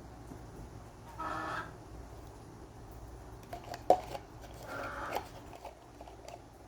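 Seagulls calling: two short, pitched calls, one about a second in and one a little past the middle. A single sharp click comes just before the second call.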